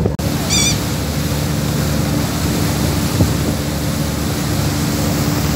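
Steady engine drone with a rushing wash of water and wind, as heard aboard a ferry under way. A short, high, wavering bird call comes about half a second in.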